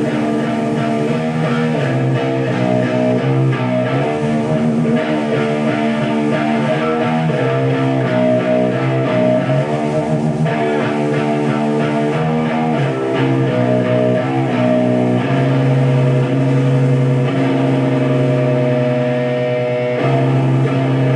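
Live rock band's electric guitar and bass guitar playing held chords that change every second or two.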